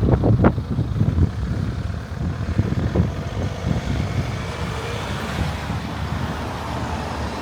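Road traffic passing along a town street, a steady low rumble, with wind buffeting the microphone in the first second.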